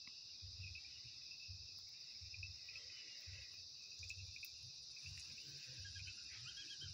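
Faint, steady high-pitched trilling of crickets and other night insects, with a soft low pulsing about twice a second underneath.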